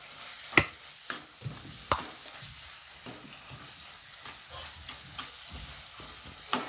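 A steel spoon stirring an onion-tomato masala frying in a pan, with a steady sizzle. The spoon clacks sharply against the pan a few times, loudest about half a second and two seconds in.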